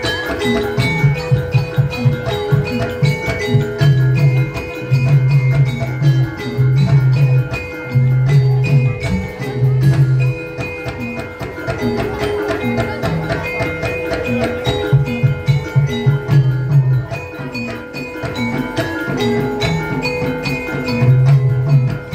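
Javanese gamelan ensemble playing: metallophones strike a repeating melody over steady drum strokes.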